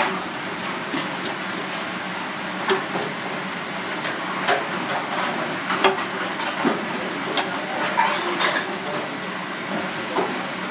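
Stirring and tossing bean sprouts, greens and fish with chili paste in a large stainless steel pot: irregular knocks and clinks of a spatula against the pot, roughly one a second, over a steady hiss.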